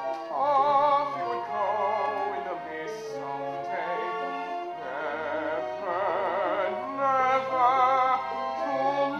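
A male lead singing a musical-theatre song with wide vibrato, backed by a pit orchestra holding low notes that change every second or so.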